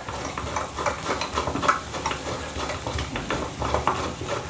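Hand screwdriver driving a screw into a metal mounting bracket on an electrical box: a steady run of small clicks and scrapes as the screw turns.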